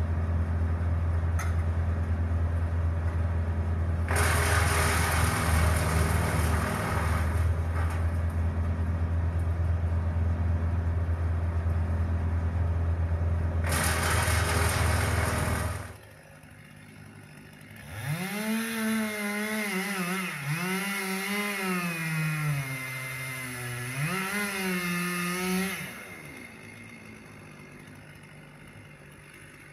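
A wood chipper's engine runs steadily, with two bursts of branches being chipped, then stops about halfway through. A chainsaw is then revved up and down for several seconds and lets off near the end.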